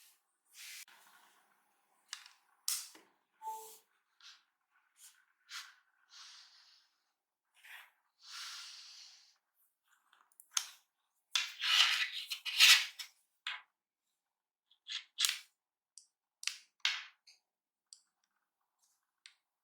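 Hands handling a MacBook Air: scattered clicks and taps with short rustling swishes, busiest and loudest about eleven to thirteen seconds in. A short two-note electronic blip sounds about three and a half seconds in.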